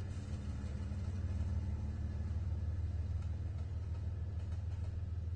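Diesel freight locomotives passing at close range, their engines giving a steady low drone.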